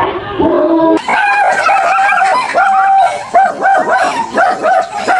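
Small dog barking in a fast run of high, yappy barks, about two or three a second, growing busier about a second in.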